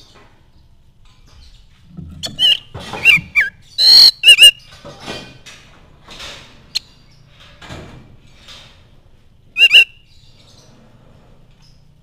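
Oriental magpie-robin calling in loud, short phrases that mix curved whistled notes with harsh, scratchy notes. The phrases are grouped between about two and five seconds in, with fainter calls after, and a brief loud call close to ten seconds in.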